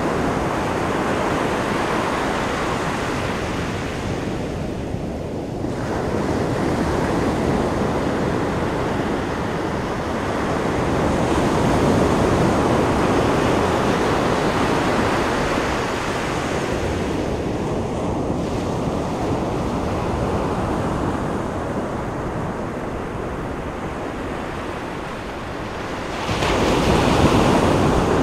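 Ocean surf: waves breaking and washing ashore in a steady rush that swells and ebbs. A louder wave crashes near the end.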